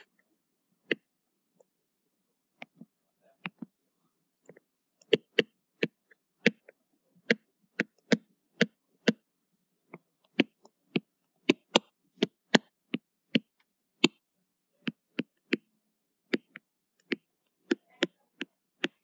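Stylus nib tapping on a tablet screen while equations are handwritten: irregular sharp ticks, up to about two a second, some louder than others.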